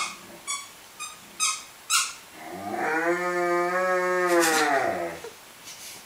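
An Afghan hound makes one long, drawn-out vocal sound lasting about two and a half seconds, rising slightly and then falling away. It follows a handful of short squeaks in the first two seconds.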